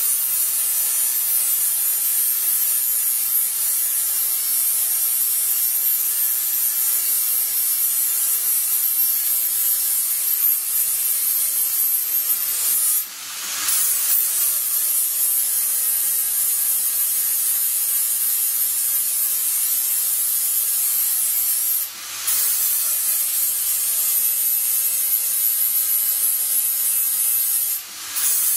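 Electric angle grinder with an abrasive disc grinding the cut edge of a sheet-steel panel, a steady high-pitched whine over a grinding rasp. It eases off briefly three times, about halfway through, about three-quarters through and just before the end, then comes back up to speed.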